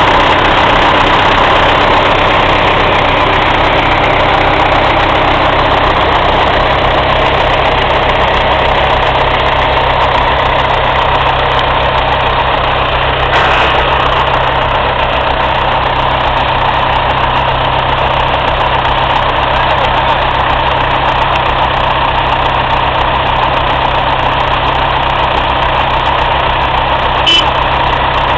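Diesel tractor engine running steadily at idle, with no revving. There is a short knock about halfway through and another near the end.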